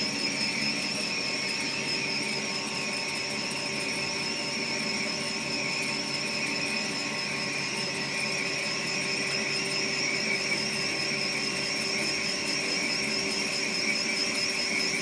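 Special-purpose twin-side CNC turning machine running steadily, with a high whine that wavers slightly and evenly over a constant machine hum.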